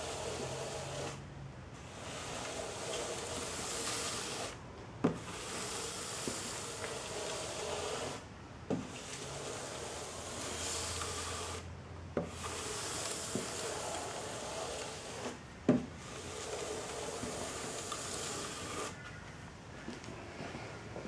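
Sanding block rubbed back and forth by hand over a polyurethane-coated wooden tabletop, scuffing it between coats to flatten raised bits. Steady scratching in runs of about three seconds with brief breaks, and a light knock at a few of the breaks.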